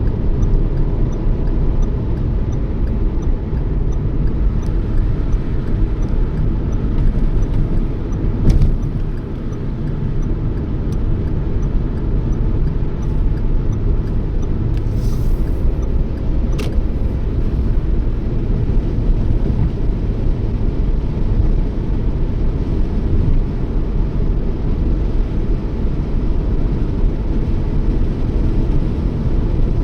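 Steady road and engine noise of a Toyota Yaris cruising, a dense low rumble, with a sharp knock about eight seconds in.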